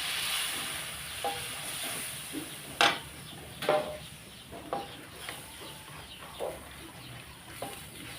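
Water poured into a hot wok of fried spice paste, hissing loudly at first and fading over a second or two. Then the mixture sizzles while a spatula scrapes and knocks against the pan several times.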